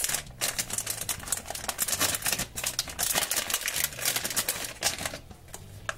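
My Little Pony foil blind-bag pouch crinkling and crackling as it is handled and torn open by hand: a dense, uneven run of small crackles.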